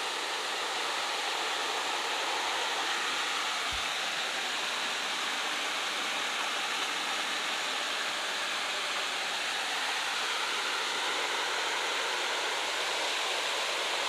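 Water of a small waterfall cascading over stepped rock ledges: a steady, even rush and splash.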